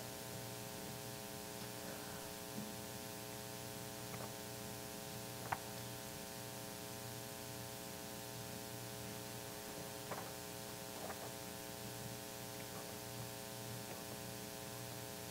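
Steady electrical mains hum, with a few faint, brief clicks: a sharper one about five seconds in and a couple more around ten seconds.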